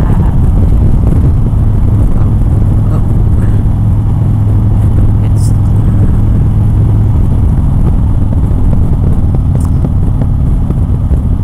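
Motorcycle riding at a steady speed, heard through a helmet-mounted camera's microphone: a constant low engine drone mixed with rushing wind noise.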